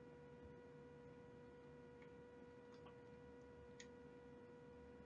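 Near silence: a faint steady hum with a few faint clicks.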